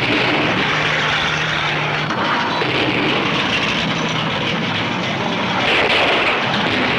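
Old American cars in a demolition derby, several engines running together in a steady, loud din with a low hum underneath.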